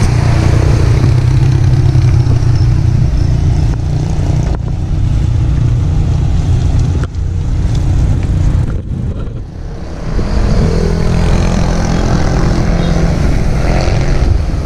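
Continuous wind rush and road rumble on a handlebar camera while cycling along a wet bike lane. From about ten seconds in, the hum of a passing motor vehicle's engine rises over it.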